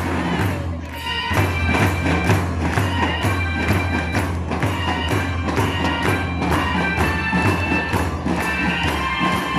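School marching band playing: bass and snare drums keep a steady march beat with cymbals, and a massed section of melodicas comes in with the melody about a second in.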